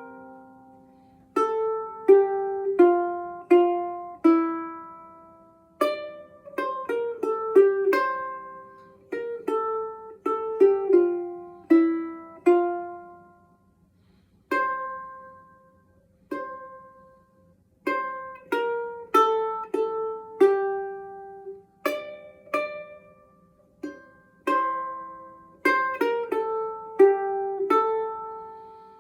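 Tenor resonator ukulele with an aluminum cone, picked: a melody of single plucked notes, each with a sharp attack that rings and fades, the cone giving the instrument a louder sound and its own tone. The playing pauses briefly twice around the middle.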